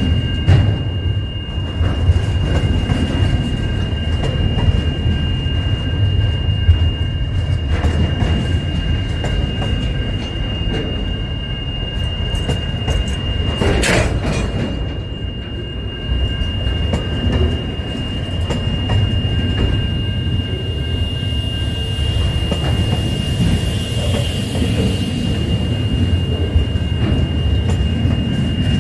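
Container freight train's wagons rolling past close by: a steady rumble of wheels on the rails with a continuous high squeal from the wheels. A single sharp clank about halfway through.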